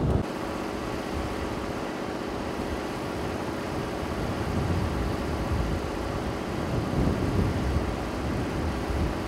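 A vehicle engine idling steadily, a constant hum with low rumble.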